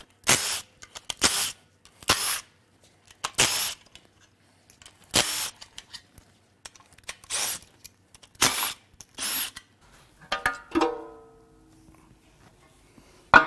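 Cordless power tool run in about eight short bursts, spinning out the oil pan bolts on a GM 6.0 LQ4 V8. Near the end, a metal clank with ringing and then a sharp clang as the cast oil pan comes off the block.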